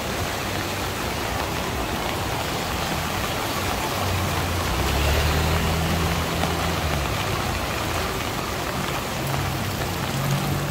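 Steady rain falling, with a vehicle's low engine hum passing through about midway.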